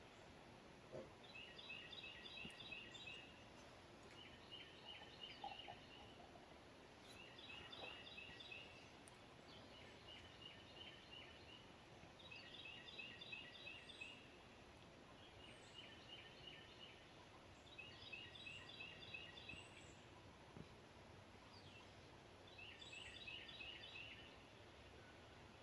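Faint chirping calls, each a rapid train of pulses lasting about a second, repeating every two to three seconds in two alternating patterns, over a low steady hiss.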